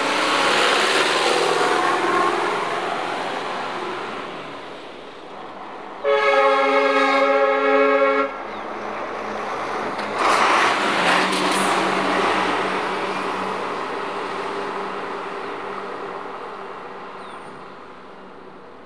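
A minibus driving past with its engine running, sounding one horn blast of about two seconds partway through. Near the middle its engine swells again, then runs on and slowly fades.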